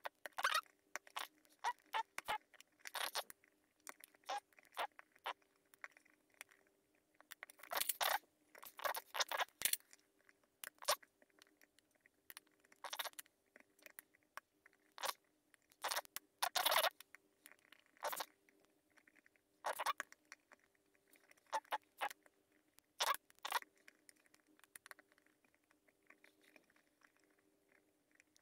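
Steel lock pick scraping and clicking against the pin stack inside a euro-profile cylinder lock while it is being picked, heard as irregular sharp clicks and short scrapes in clusters, sped up.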